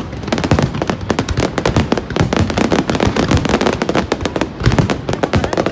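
Fireworks going off in a dense, continuous string of bangs and crackles, many each second.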